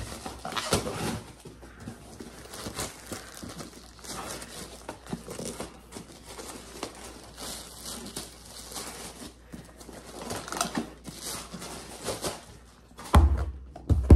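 Cardboard box and plastic packaging handled and opened by hand: irregular rustling, crinkling and scraping, with a loud thump about a second before the end.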